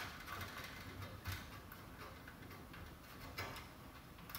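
Faint, scattered clicks and rustles of wire ends being handled as a twist-on wire connector is screwed onto a bundle of fixture wires.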